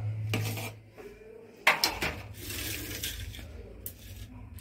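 Stainless steel plate clattering on a countertop: a few knocks, the loudest a little under two seconds in, then a short scrape as it is slid into place.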